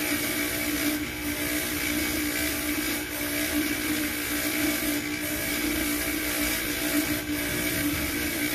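Electric bench polishing motor running steadily with a hum and hiss, its buffing wheel spinning on the tapered spindle as a coin is held against it for polishing.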